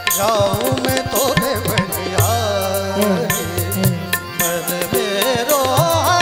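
A Hindi devotional bhajan: a man sings long, ornamented, wavering melodic lines over steady harmonium tones and a regular tabla rhythm.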